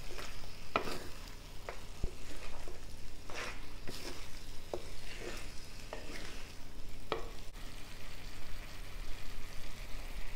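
Chicken pieces sizzling as they are sautéed in oil with chilli powder, while a wooden spatula stirs and scrapes them around the pan in irregular strokes about once a second; the strokes thin out in the last few seconds.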